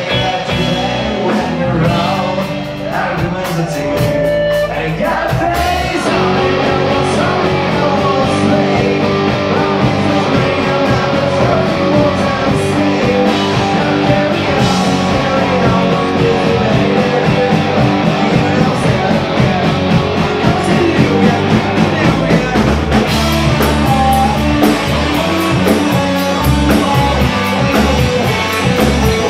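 A live rock band playing loudly: electric guitars, electric bass and a drum kit.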